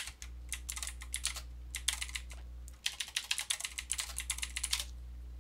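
Typing on a computer keyboard, quick runs of keystrokes in three bursts, over a steady low hum.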